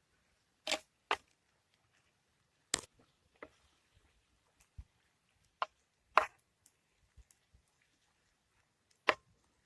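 A handful of sharp clicks and cracks, sparse and irregular, about eight in all, with near quiet between them.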